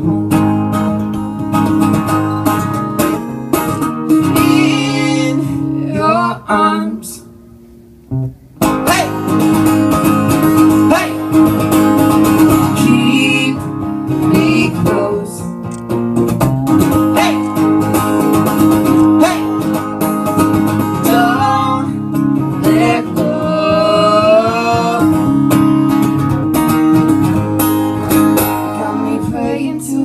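Live acoustic guitars playing a slow song with singing. The music almost drops out for about a second and a half around seven seconds in, then comes back in.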